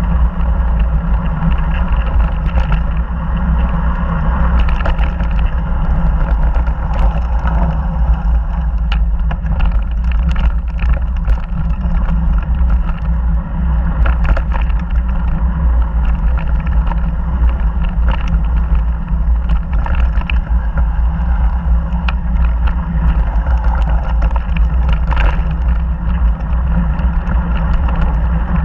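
Ride noise from an action camera on a mountain bike descending a dirt trail: wind buffeting the microphone as a loud, constant low rumble, with frequent rattles and clicks from the bike and tyres over the gravel.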